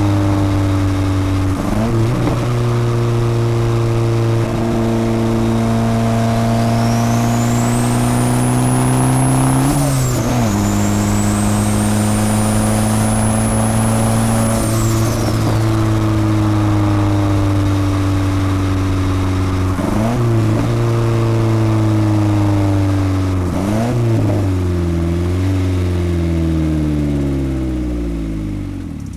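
Turbocharged Honda Civic D16 1.6-litre four-cylinder pulling hard through several gear changes, its note climbing in each gear and dropping at each shift. A high turbo whistle rises twice as it spools under boost, with turbo flutter at the shifts. Near the end the revs fall as the car slows.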